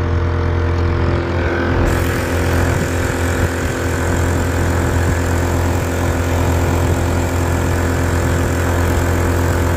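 Small Chinese-made 4 hp four-stroke outboard, a Honda clone, running steadily at cruising throttle under way.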